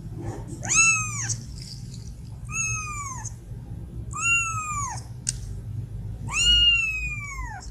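Kitten mewing: four high-pitched mews, each rising then falling in pitch, with the last one the longest.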